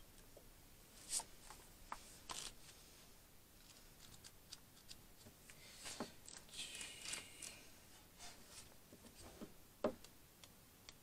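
Faint rustling of paper and scattered soft clicks as the pages of a tarot deck's guidebook are leafed through, with a brief longer rustle about halfway.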